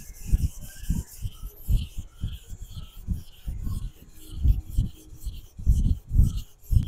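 Nakiri knife blade being stroked back and forth on a 1000-grit whetstone: a rhythmic scraping rasp at about two to three strokes a second, each with a dull knock. This is the polishing pass that brings out the blade's cladding line.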